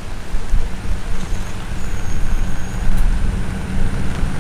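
Wind buffeting the microphone: a loud, gusty low rumble that rises and falls unevenly.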